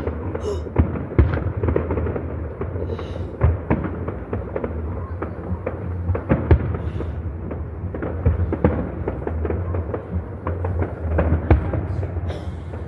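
Fireworks going off in a dense, continuous barrage: many sharp bangs and crackles, one after another, over a steady low rumble.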